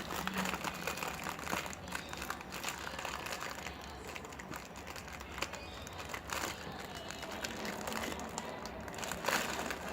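Plastic packaging, likely the cream cracker biscuit packet, crinkling and crackling as it is handled, with many irregular small crackles.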